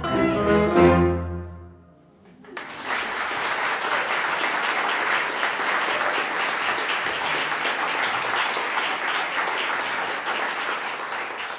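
A chamber ensemble of violin, viola, cello, double bass and piano ends a klezmer-style piece on a held chord with a deep bass note, cut off about two seconds in. After a short pause the audience applauds steadily, fading near the end.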